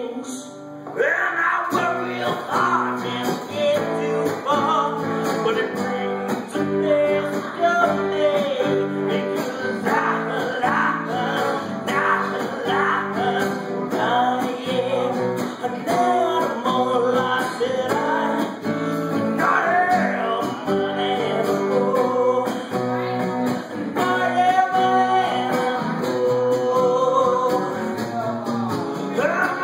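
Live rock music: guitar with a singing voice, the song carrying on steadily after a brief drop in level near the start.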